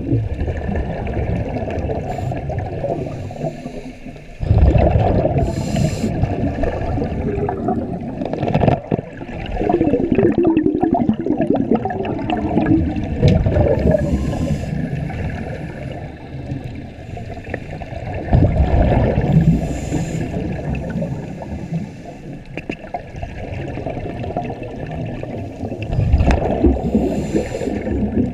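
Scuba divers breathing through their regulators underwater, heard through an underwater camera housing: a constant bubbling rumble, with loud surges of exhaled bubbles every few seconds and a brief higher hiss now and then.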